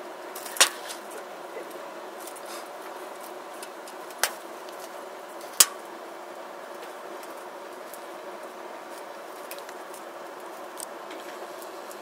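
Three sharp clicks, the loudest about half a second in, the others about four and five and a half seconds in, over steady background noise: handling noise from a hand-held camera being tilted and zoomed.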